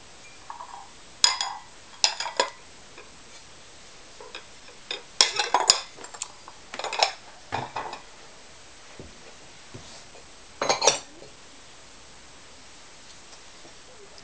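Glazed, kiln-fired ceramic bowls clinking and knocking against each other as they are lifted out of an electric kiln and stacked. There are scattered separate clinks over the first eleven seconds, with a few in quick succession.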